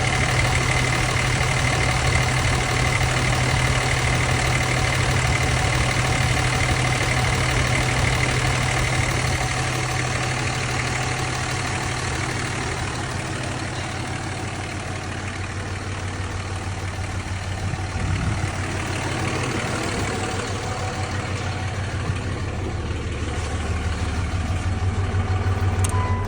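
Turbocharged boat engine running with a failed turbocharger. A thin, steady high whistle rides over the engine for about the first ten seconds. The engine then runs at a lower note, growing louder again toward the end.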